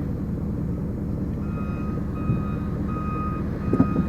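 A heavy vehicle's reversing alarm beeping at an even pace, about once every three-quarters of a second, starting about a second and a half in, over a steady low engine rumble. A short clunk near the end.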